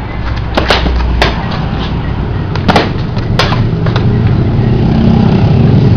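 Rattan Arnis sticks cracking against each other in sparring: several sharp clacks in the first three and a half seconds. A low engine rumble builds through the second half.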